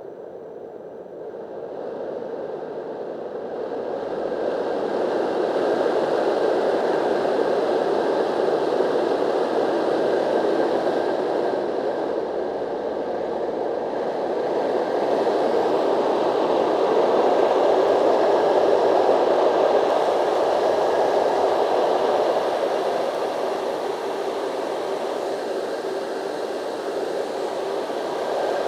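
SNOOZ Original white noise machine: its real fan turning inside the housing gives a steady, airy rush centred in the low-mid range, with a faint steady tone riding above it. It gets louder over the first few seconds, then holds with gentle swells in level.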